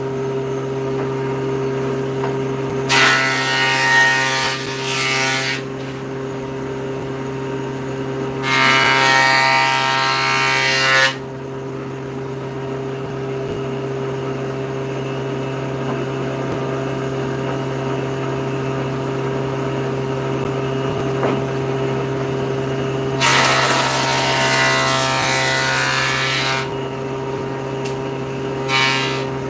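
Table saw running steadily with its motor hum. Its blade cuts through boards three times, at about three, nine and twenty-four seconds in, each cut a louder, higher-pitched whine of two to three seconds. A fourth cut starts near the end.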